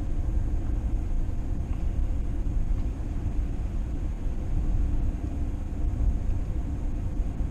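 Steady low road and engine rumble of a moving vehicle, heard from inside it.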